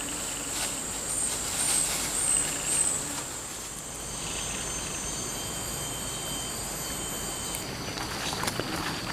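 Steady high-pitched drone of insects such as cicadas or crickets, with four short high chirps over it early on, cutting off suddenly about three-quarters of the way through. Near the end come irregular crackles of footsteps on plantation litter.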